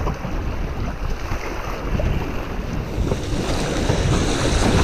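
Rough river water rushing and splashing around a kayak running a riffle, with wind buffeting the microphone.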